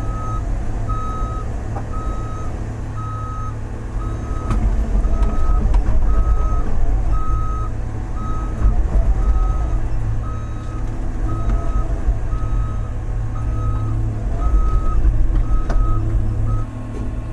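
Large excavator's travel alarm beeping steadily a little faster than once a second while the machine tracks, over its diesel engine running; the engine grows louder in two stretches, and the beeping stops near the end.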